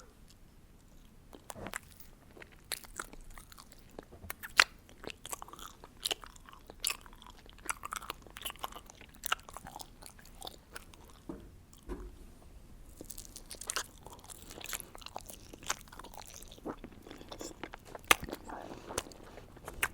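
Close-miked biting and chewing of an eyeball gummy: irregular sharp clicks and wet mouth sounds throughout.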